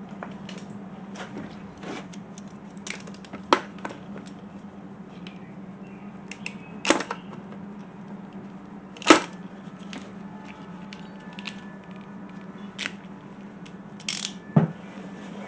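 Scattered sharp clicks and knocks of hand tools and plastic intake parts being handled, about half a dozen spread out, the loudest about nine seconds in, over a steady low hum.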